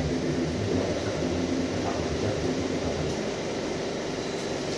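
Steady low mechanical hum with a wash of room noise and no sharp events.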